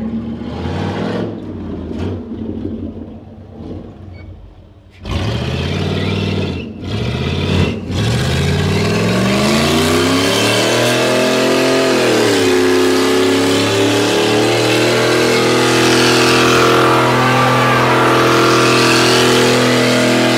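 Dodge 318 V8 in a Jeep DJ-5 postal truck running at low revs, then jumping louder about five seconds in with a few quick revs. From about eight seconds in it revs up, dips briefly, and is held at high revs through a burnout, with the noise of spinning tires under it.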